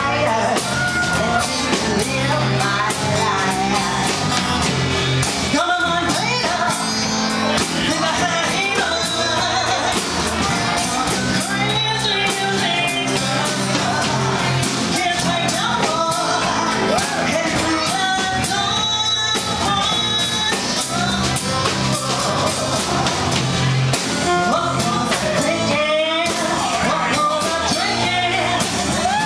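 Live band playing rock and roll: a woman sings lead through a microphone over acoustic guitar, electric guitar and a drum kit.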